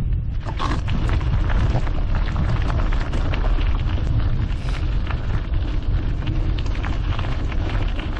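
Mountain bike tyres rolling fast over a gravel trail, a dense crackle of grit and stones, with wind buffeting the action camera's microphone as a steady low rumble.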